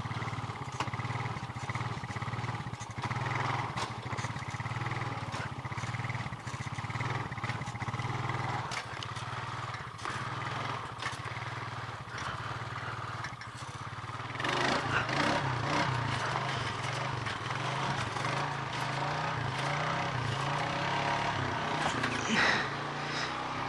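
Honda ATV engine running at a steady low speed, then from about halfway through revving up and down as it is ridden.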